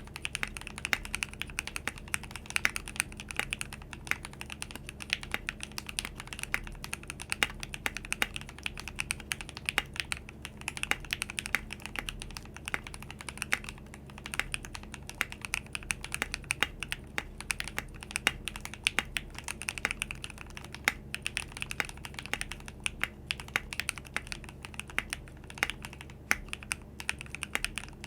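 Custom 60% mechanical keyboard with lubed Glorious Lynx linear switches, an aluminium plate, PBT keycaps and a foam-dampened acrylic case, typed on steadily: a fast, continuous stream of crisp keystrokes.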